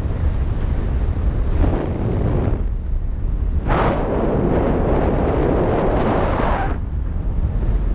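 Airflow of a paraglider in flight buffeting the camera microphone: a steady low rumble of wind noise, with a stronger, hissier rush for about three seconds in the second half.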